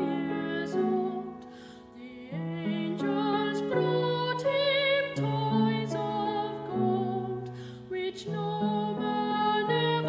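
Slow, gentle music with held chords that step from note to note beneath a wavering melody line.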